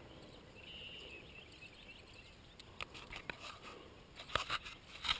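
Camera and gear handling noise: scattered light clicks and knocks in the second half over a faint outdoor background, the loudest a little over four seconds in and right at the end.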